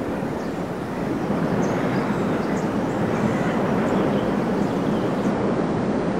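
A steady, dense rumbling noise with a few faint, short high chirps above it.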